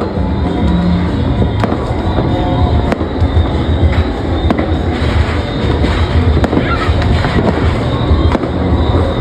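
Fireworks and firecrackers going off: a continuous crackle of many sharp bangs over a dense, rumbling wash.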